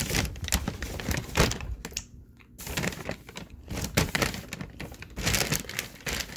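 Food packaging crinkling and rustling as it is handled close to the microphone, with irregular sharp clicks and knocks and a short lull about two seconds in.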